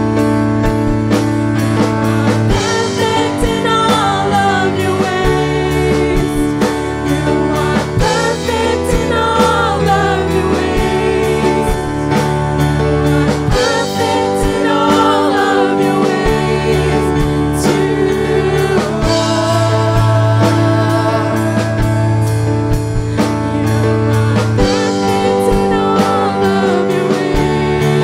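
Women's voices singing a worship song, backed by a live band of keyboard and drum kit.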